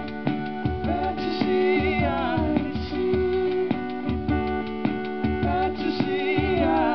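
Live acoustic music: a steel-string acoustic guitar strummed in a steady rhythm under a wavering high melody line.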